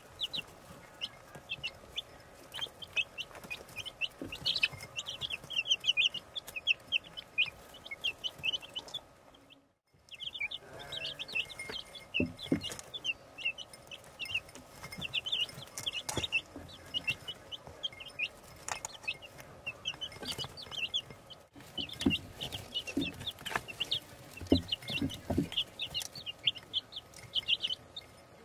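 A brood of week-old chicks peeping constantly, many short high peeps overlapping, with a brief break about ten seconds in. A few soft low knocks come in the second half.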